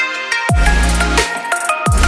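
Electronic background music with heavy bass that drops in pitch on each beat and held synth notes.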